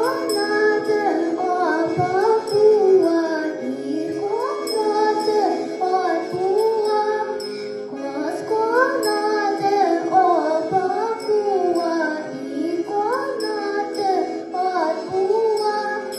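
A young girl singing a Tatar folk song into a microphone, in phrases that glide up and down, over steady instrumental accompaniment.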